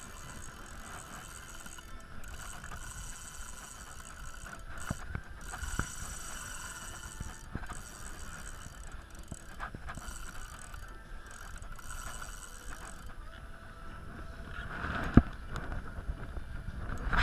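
Spinning reel being cranked against a fish on a bent rod, a steady mechanical whir with scattered small clicks, over wind and sea noise. A sharper knock comes near the end.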